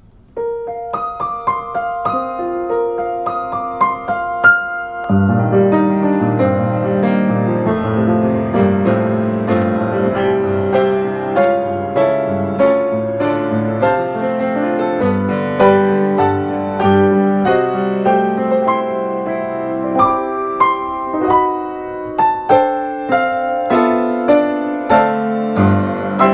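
Background piano music. A melody plays in higher notes alone at first, and lower accompanying notes join about five seconds in.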